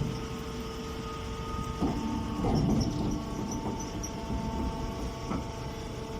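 Hay baler machinery running: a steady low rumble with a constant whine over it, and a few short knocks.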